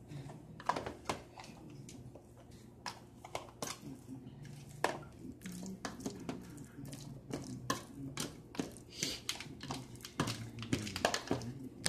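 Metal fork mashing banana in a plastic food container: irregular taps and clicks of the fork against the plastic, over a steady low hum.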